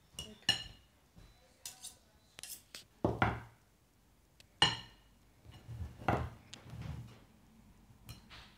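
Metal forks and a knife scraping and clinking against ceramic plates as mashed potato is spread around them, in irregular strokes with a few louder scrapes.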